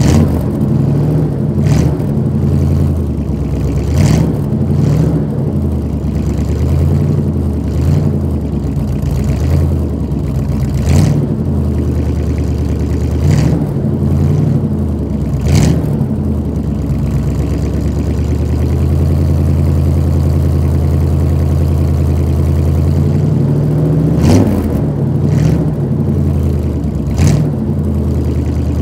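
1986 Chevy C-10 pickup's engine idling with its exhaust note, revved up briefly and dropping back about ten times, with a steady idle stretch about two-thirds through. The engine is warming up after a cold start.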